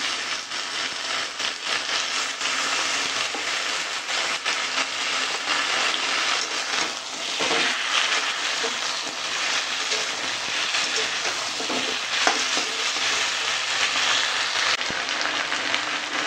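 Drumstick, pumpkin and potato pieces with ginger-garlic paste sizzling in hot oil in a metal wok. A flat metal spatula stirs them, scraping and knocking now and then against the pan.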